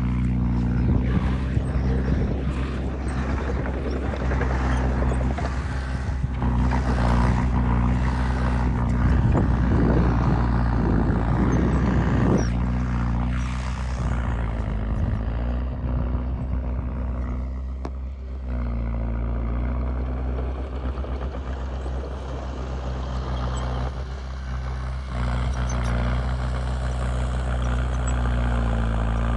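Heavy diesel engine of earthmoving machinery running steadily, with a noisier, louder stretch in the first half that eases off about 14 seconds in.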